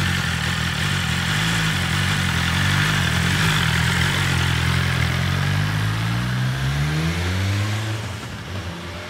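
BMW S1000 RR superbike's inline-four engine running at low revs as the bike pulls away slowly; its pitch climbs about six seconds in as it accelerates, then the sound fades as the bike rides off.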